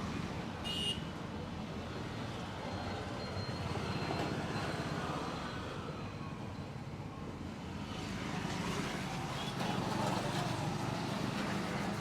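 Steady roadside traffic noise, with a brief high-pitched sound a little under a second in.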